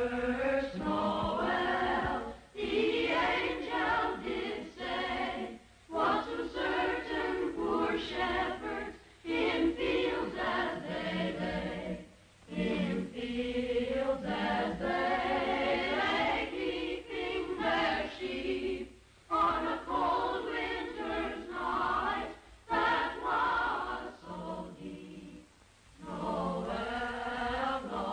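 A choir singing over the closing titles, in phrases broken by short pauses every few seconds.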